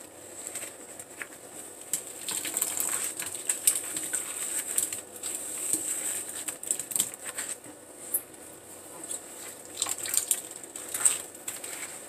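Wet floral foam being squeezed and crumbled by rubber-gloved hands in soapy water: irregular wet squishing and crackling with small splashes, heaviest a couple of seconds in and again near the end.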